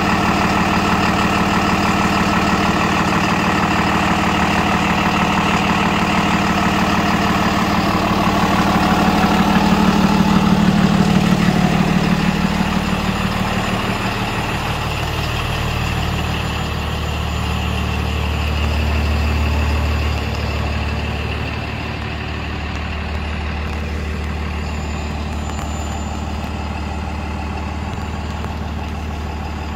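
A 2016 Freightliner M2 box truck's Cummins ISB 6.7 inline-six turbo diesel idling steadily. It is loudest around ten seconds in and a little quieter from about twenty seconds on.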